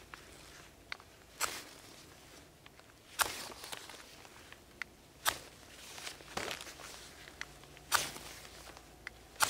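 Knife spine struck down a ferrocerium rod again and again, about five short rasping scrapes, one every one and a half to two seconds, throwing sparks at birch bark tinder to light it.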